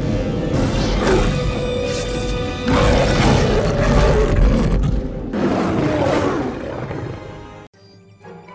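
Lion roaring: several long, rough roars over background music with held notes. The sound cuts off suddenly near the end.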